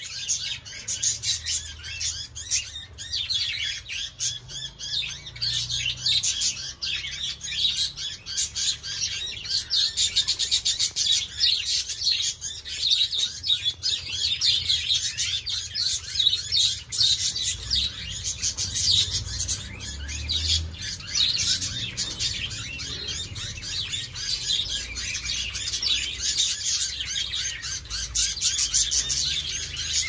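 A flock of budgerigars chattering: many short, high chirps overlapping in a continuous warble.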